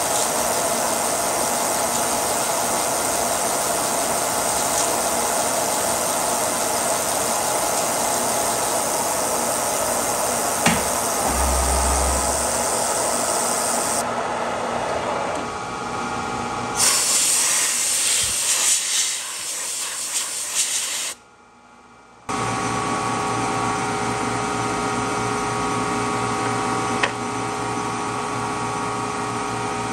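Milling machine cutting chrome-plated 1045 steel as the cutter feeds into the centre of a leveling pad, a steady running whine mixed with the hiss of mist coolant spray. About two-thirds through there is a louder stretch of hiss and rattle, a brief drop to near silence, then the machine runs on steadily.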